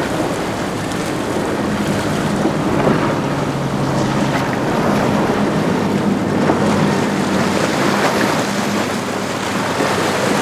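Boston Whaler 350 Outrage's outboard engines running steadily at speed, under the rush of the hull through rough water and spray, with wind buffeting the microphone.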